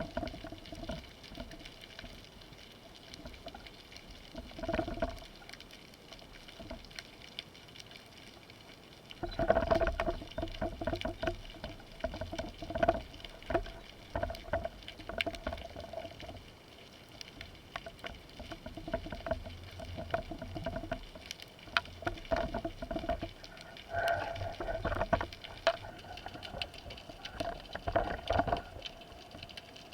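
Underwater sound picked up by a camera in its housing: a steady fine crackle of clicks, with two longer spells of louder swishing and rumbling water movement against the housing.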